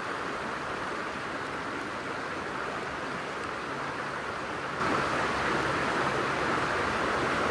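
Steady rush of a freestone creek's flowing water, turning suddenly louder about two-thirds of the way through.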